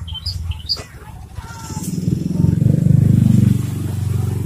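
A motorcycle engine running close by, building up from about a second and a half in, loudest around three seconds, then easing off slightly. In the first second, a caged Javan bush lark gives a few short high chirps.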